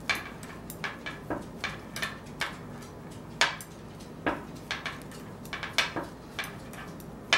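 Knitting needles clicking against each other as a row is purled: light, irregular clicks about three a second, with a couple of louder ones about halfway through.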